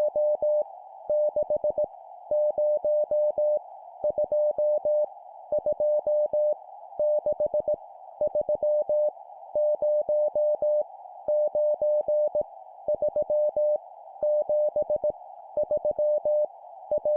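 Morse code sent at 17 words per minute: a single steady mid-pitched tone keyed on and off in runs of dits and dahs, each digit five elements long, with short pauses between the groups. A steady band of rushing noise sits behind the tone, and each key-down and key-up gives a faint click.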